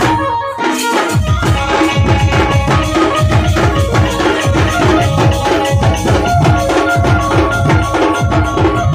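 Dhumal street band playing: a large stick-beaten bass drum and snare drums pound a fast, steady rhythm, with metal hand cymbals and a sustained melody line on top. The drums break off for a moment near the start and come back in about a second in.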